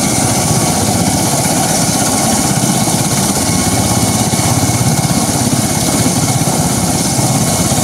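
Bell Boeing V-22 Osprey tiltrotor running on the ground at warm-up, its two Rolls-Royce AE 1107C turboshaft engines driving both proprotors: a loud, steady rush with a fast, even blade beat and a faint high turbine whine.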